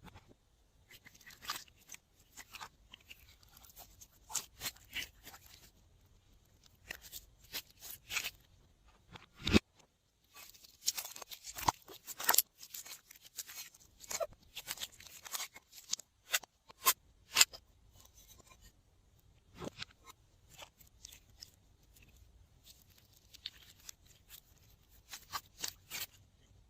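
Glossy slime being worked and mixed by hand, giving irregular clicks, crackles and small pops, with a couple of sharper snaps about ten and twelve seconds in.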